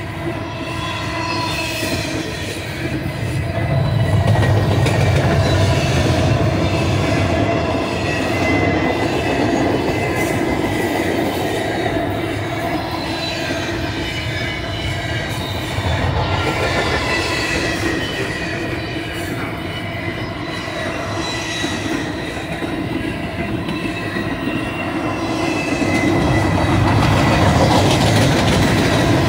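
A double-stack container train's well cars rolling past: a steady rumble of steel wheels on rail, with wheels squealing in several held high tones. It swells louder about four seconds in and again near the end.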